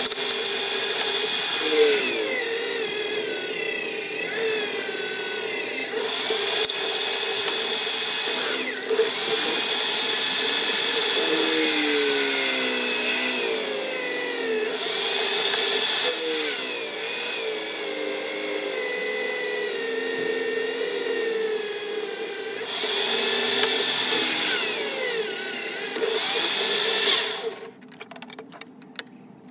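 Drill press running, its twist bit boring pin holes through the steel handle tang of a knife made from an old file, the whine wavering up and down in pitch as the bit cuts. It stops about two seconds before the end.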